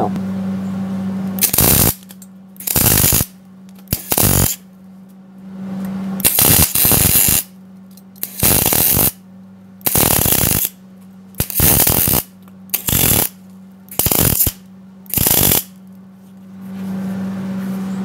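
Wire-feed welding arc struck in about ten short bursts, each under a second, as the welder works the gun trigger on and off because the machine is set a little hot, stitching a steel sleeve into a hole in a bracket. A steady low hum runs between the bursts.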